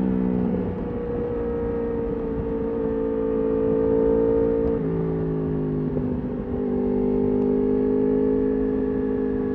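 Yamaha R1 RN22 crossplane inline-four, through an Akrapovič exhaust, running under steady throttle on the road. Its pitch steps down sharply at gear changes about half a second in, near five seconds and again a little later.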